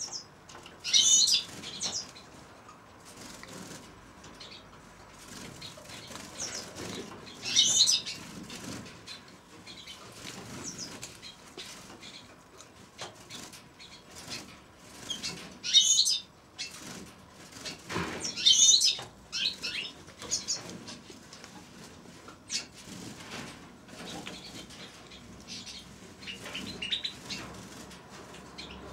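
Small aviary finches giving several short bursts of high, rapid twittering calls a few seconds apart, with wings fluttering in between.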